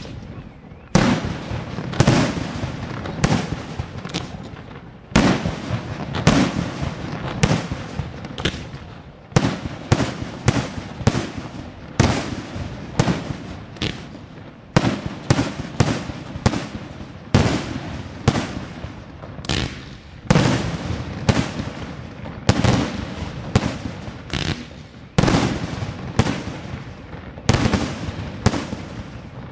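Daytime fireworks batteries firing a continuous barrage of sharp bangs, roughly one or two a second, some in quick clusters, each report trailing off briefly.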